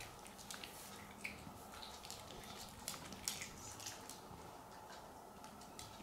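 Faint, scattered crunches and clicks of a Chihuahua chewing dry kibble.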